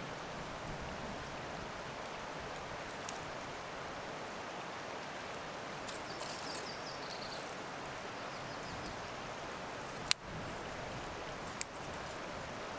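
Dry twigs being handled and laid into a rock fire pit over a steady outdoor rushing noise, with two sharp snaps near the end.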